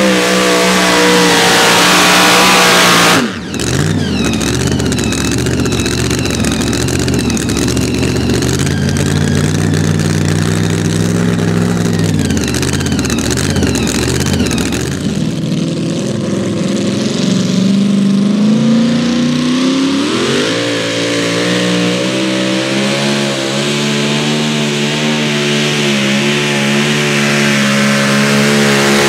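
Supercharged pulling-truck engine at full throttle dragging the sled, cut off about three seconds in and dropping to a lower, uneven idle. Later another supercharged pulling truck's engine revs up and holds high revs under load.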